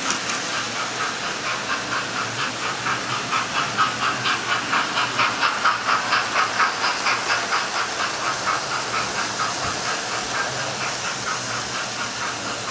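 Model railway trains running, with a sound-fitted model steam locomotive chuffing at about three beats a second over a steady hiss. The beat gets louder toward the middle and fades near the end.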